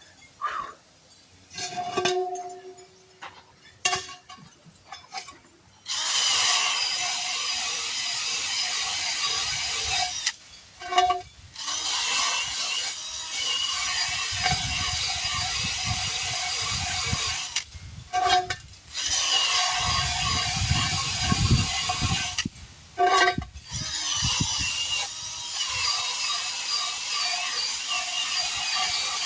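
A power tool runs in four long stretches of several seconds each, with short gaps and sharp knocks between them. In some stretches it strains with a deep rumble.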